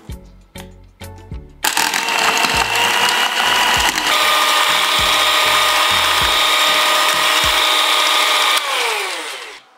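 Electric hand mixer starting up about one and a half seconds in, its motor whining loudly as the beaters whip cream and cream cheese in a glass bowl. The whine steps up in pitch about four seconds in, as the speed goes up. Near the end the motor is switched off and winds down with a falling whine.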